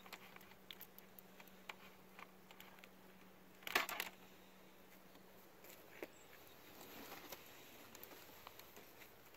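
Faint clicks and scratches of a hand wire stripper/crimper working a thin wire, with a louder brief clatter of clicks about four seconds in.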